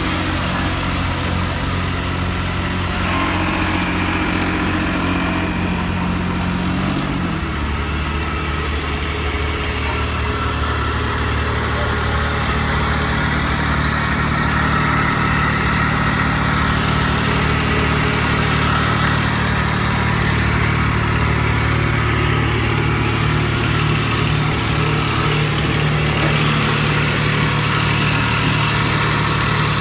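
Engine of a Sakai SW250 double-drum roller running steadily. About seven seconds in its pitch drops a little, and it then runs steadily at the lower speed.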